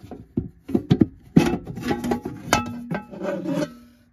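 Knocks and clatter of the front cover of a Victron MultiPlus 12/3000/120 inverter/charger being worked loose and lifted off by hand, a few knocks leaving the panel ringing briefly.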